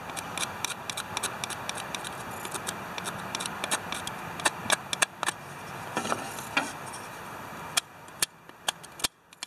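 Screwdriver tip scraping and clicking against the metal terminals inside a Ford 2600 tractor's distributor cap, cleaning carbon deposits off them. Many sharp clicks over a steady scratchy rasp, stopping about nine seconds in.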